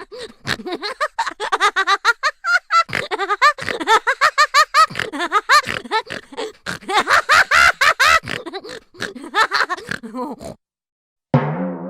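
Cartoon comedy sound effect: a high-pitched, sped-up voice jabbering or giggling in rapid, squeaky syllables for about ten seconds, breaking off abruptly. Just before the end a different, lower effect begins with a falling pitch.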